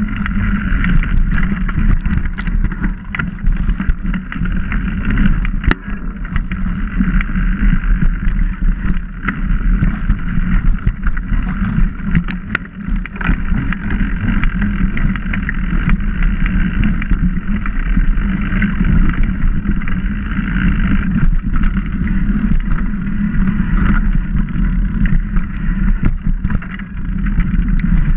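Wind buffeting the camera microphone and knobby tyres rolling over a dirt trail as a mountain bike is ridden fast, with scattered sharp clicks and rattles from the bike over roots and rocks.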